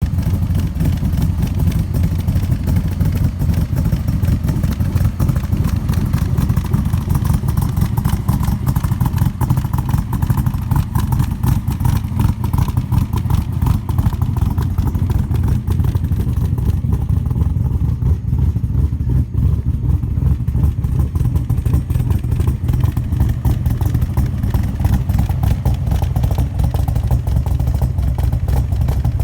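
Backdraft Racing Cobra replica's V8 engine idling steadily through its exhaust, a dense, even low pulsing with no revs.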